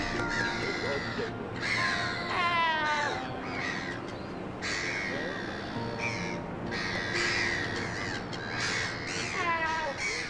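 Young Cape fur seal calling over and over at close range: a run of harsh, rasping cries, one after another with short gaps.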